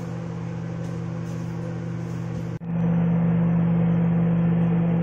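Microwave oven running with a steady hum. It drops out for a moment about two and a half seconds in and comes back louder.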